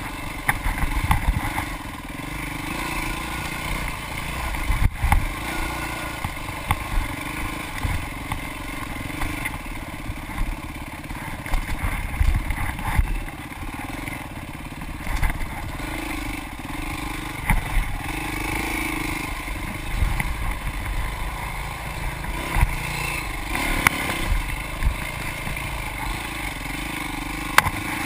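Off-road dirt bike engine running as it is ridden along a rough woods trail, the throttle rising and falling. Frequent short knocks and clatter come from the bike jolting over the rough ground.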